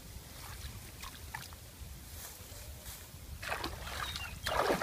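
Hands pulling at reeds and sticks in shallow muddy water: small rustles and drips, then two louder splashes, one about three and a half seconds in and a bigger one near the end. A steady low rumble runs underneath.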